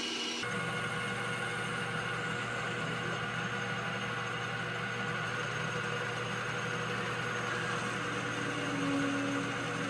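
Metal lathe running steadily with a constant motor hum. The sound changes abruptly just after the start, and a short extra tone sounds near the end.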